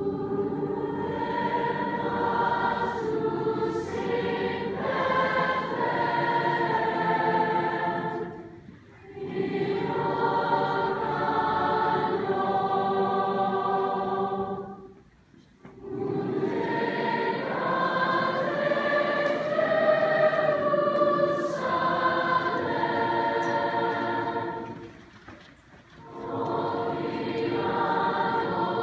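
Choir singing a carol in sustained chords, in four phrases broken by short pauses for breath.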